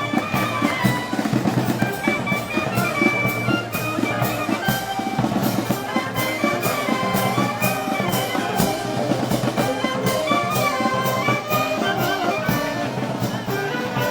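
Brass band playing festival music, trumpets carrying the melody over drums keeping a steady beat.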